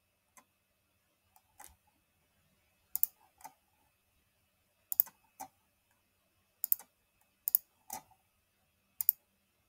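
Computer mouse clicking: sharp single clicks every second or two, several in quick pairs.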